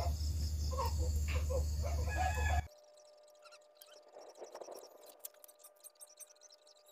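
Chickens clucking over a steady high insect drone and a low rumble. The sound cuts off abruptly about two and a half seconds in, leaving a faint steady tone and scattered light clicks.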